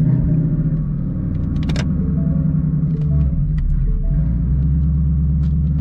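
Twin-turbo 5.0 Coyote V8 of a 2019 Mustang GT running steadily at low revs, heard from inside the cabin, its Corsa Extreme cat-back exhaust giving a deep, even rumble.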